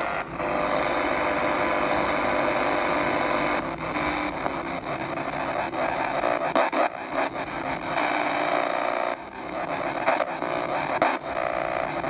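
Shortwave static hissing from a Souness SNI-F100 portable DSP radio's speaker as its tuning knob is turned across the SW2 band with no station locked in. The hiss dips briefly a few times as the tuning moves.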